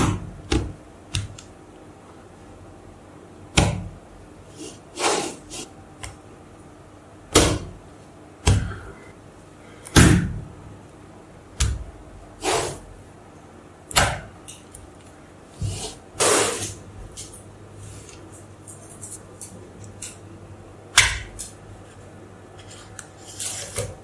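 Slabs of small magnetic balls snapping onto one another as they are stacked: sharp clicks every second or few seconds, with a few longer scraping rubs of ball against ball between them.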